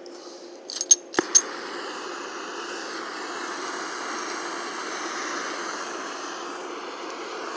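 An oxygen-acetylene welding torch being lit on acetylene alone: a few sharp clicks from the striker about a second in, then the acetylene flame catches and burns with a steady rushing noise.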